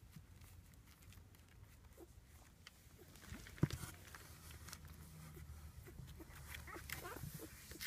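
Faint, short high squeaks from five-day-old rough collie puppies, with one sharp knock a little over three and a half seconds in and soft rustling as a hand moves the puppies about.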